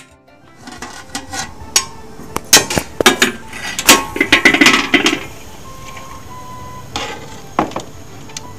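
Metal ladle and pot lid clinking and scraping against an aluminium cooking pot as the potato curry is stirred and scooped. A quick run of sharp clinks comes in the first five seconds, then a few scattered knocks later.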